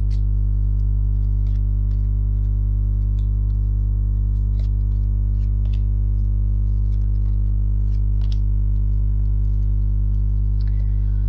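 A steady low drone with many even overtones, unchanging throughout, with faint soft clicks scattered through it.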